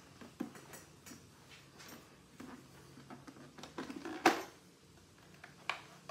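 Handling of a motorcycle helmet's hard plastic shell: soft rubbing and a few scattered plastic clicks and knocks as fingers feel over the shell and vents, the sharpest click about four seconds in.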